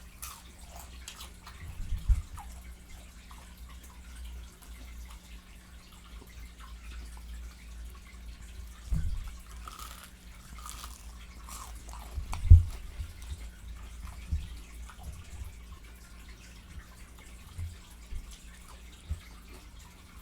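Close-miked eating sounds from someone eating Popeyes fried chicken: wet lip-smacking and chewing clicks, with a few low thumps, the loudest about twelve seconds in.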